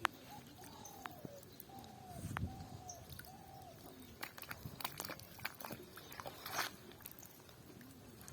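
A run of about six short, arching calls from an animal in the first three seconds. Scattered sharp clicks and knocks follow.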